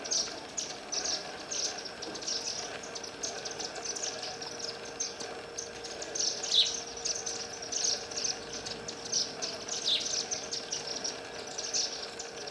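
Small birds chirping busily at a feeder: a continuous run of short, high chirps, about two to three a second, with a few louder ones. A faint steady hum sits beneath.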